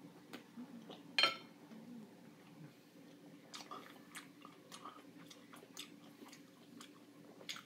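A person chewing fresh pineapple, with scattered short mouth clicks and one louder click about a second in.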